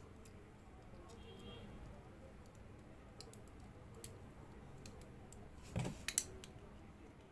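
Faint scattered clicks of a screwdriver and small screws and nuts being worked at a soldering iron's wire terminal, with a soft knock and two sharper clicks about six seconds in.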